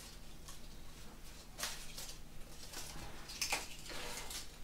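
Faint rustling and crinkling of flower stems and leaves being handled and pushed into a hand-tied bouquet, with a few short rustles, the clearest about one and a half and three and a half seconds in.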